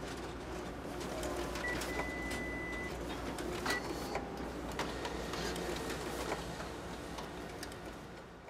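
Steady background noise, a low hum with hiss and scattered small clicks, like machinery running in a room. A high beep-like tone holds for about a second a little under two seconds in, a shorter one comes just under four seconds in, and the noise fades out at the very end.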